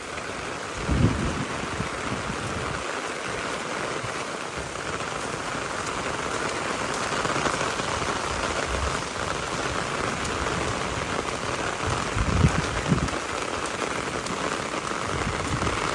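Heavy rain pouring steadily, with two brief low rumbles, one about a second in and one near the end.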